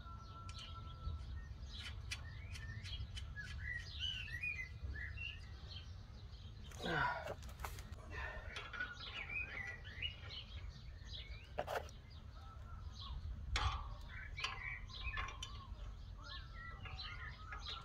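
Small birds chirping and singing all through, with a few sharp knocks and clicks from the dish bracket parts being handled, the loudest about seven seconds in, over a steady low rumble.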